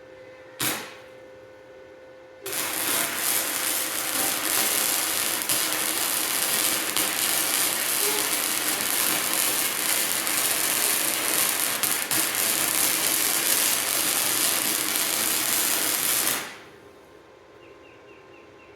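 MIG welder arc running a weld bead for about fourteen seconds, an even crackling hiss that stops suddenly, filling a ground-out seam on a forge-welded axe head at high amperage. A brief arc strike comes about half a second in.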